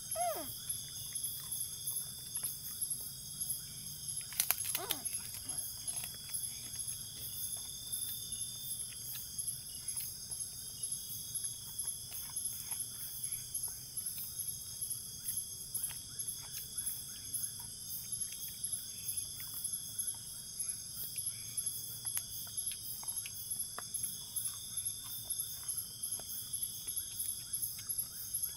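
A steady chorus of forest insects, pulsing quickly and evenly. There is a single sharp knock about four seconds in.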